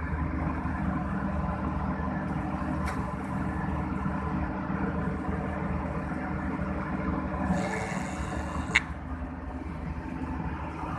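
Hitachi long-arm excavator's diesel engine running steadily, with a single sharp click or knock about three-quarters of the way through.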